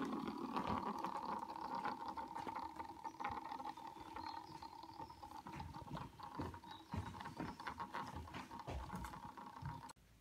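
Lego Technic spinning top, a rubber-tyred wheel on an axle tip, spinning on a wooden floor: a steady whirring hum with many light rattling clicks, slowly getting quieter. It cuts off suddenly near the end.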